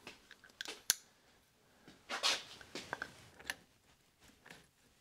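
Light clicks and taps as the aluminium housing parts of a Toro eFlex groomer gearbox are handled and fitted together by hand, the sharpest click about a second in. A short rustle comes about two seconds in.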